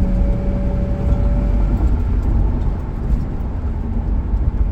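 Ford Crown Victoria's V8 engine and exhaust running at about half throttle, a steady deep rumble.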